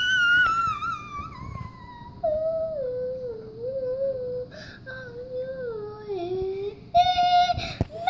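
A young boy singing without words in a sliding, sing-song voice. It starts very high and glides down over the first two seconds, then wavers on lower notes with short breaks, and ends on a brighter held note.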